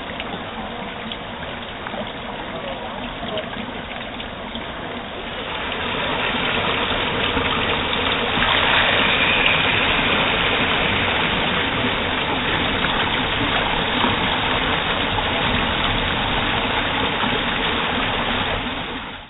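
Steady rushing and splashing of water from a radio-controlled model boat's wake as it runs through a pool. The sound grows louder about six seconds in and again about eight and a half seconds in.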